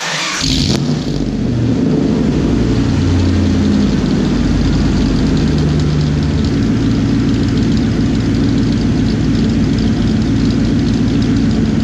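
A 1994 Ford F-150's 5.0-litre (302) V8 heard at the exhaust, starting up. It catches at once, runs at a higher idle that drops and settles over the first several seconds, then idles steadily.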